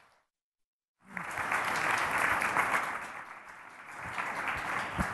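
Audience applauding, starting about a second in after a moment of dead silence; the clapping dips briefly and then picks up again.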